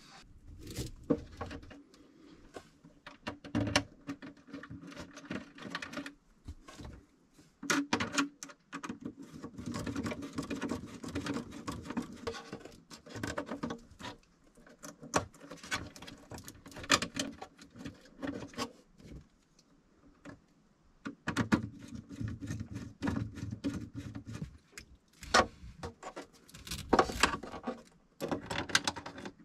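Hands working wires and cables into an EcoFlow Power Kit distribution panel: irregular small plastic clicks and taps from the terminal clamps and connectors, with the rustle and rub of cables being handled.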